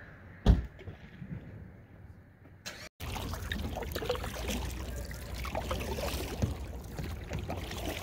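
A single knock about half a second in, then, after a sudden cut, steady running water with many small splashes and trickles.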